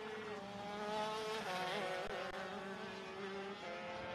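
Two-stroke shifter kart engines buzzing as two karts run close together; the engine note wavers briefly about halfway through, then holds steady.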